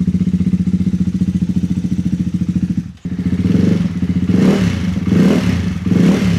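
Ducati Hypermotard 698 RVE's single-cylinder engine running through an Austin Racing slip-on titanium exhaust, idling with an even pulse. It cuts out briefly about three seconds in, then is revved in three quick throttle blips that rise and fall.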